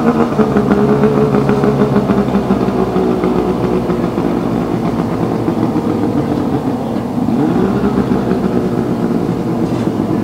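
Several two-stroke outboard racing hydroplanes running flat out across the lake, their engines giving a steady high whine at a few different pitches. About seven seconds in, one engine's pitch rises as it accelerates.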